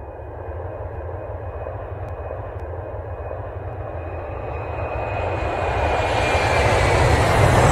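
Jet airliner engines running: a deep rumble with a high whine, growing steadily louder as the plane comes closer. The whine falls slightly in pitch near the end.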